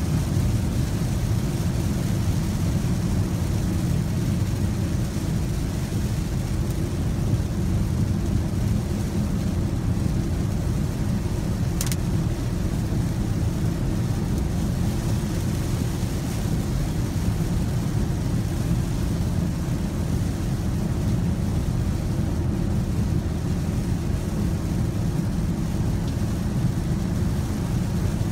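Inside the cabin of a 2016 Audi Q5 3.0 TDI cruising at about 55 mph on a rain-soaked road: a steady low rumble of tyres and drivetrain, with a hiss of rain and water spray over it. A single sharp click comes about twelve seconds in.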